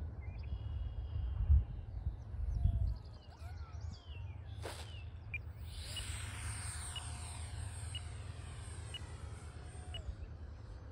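Wind buffeting the microphone in low rumbling gusts, loudest in the first three seconds. From about halfway, the high motor whine of an electric RC model airplane passing overhead, its pitch dropping near the end.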